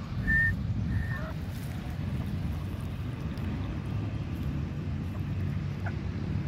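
Grey francolin giving two short, high whistled call notes near the start, the first one loud, with a couple of faint brief notes near the end. A steady wind rumble on the microphone runs under it.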